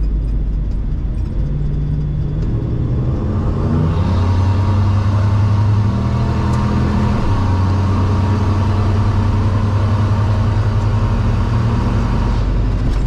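Ford Bronco engine pulling under throttle from first gear, its note climbing and stepping up in pitch a few times, louder from about four seconds in.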